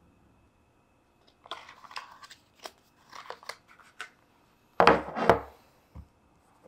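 Hands handling an iPhone and its paper box tray: short dry scratching and rustling with small clicks, then a louder double knock about five seconds in, and a single small tap near the end.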